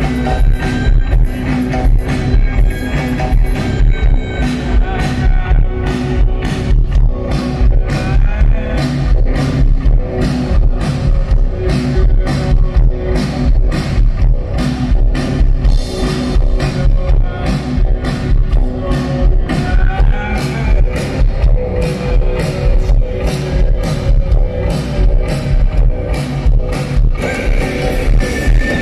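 Live heavy post-rock band music: electric guitar over a drum kit keeping a steady, driving beat of about two to three hits a second.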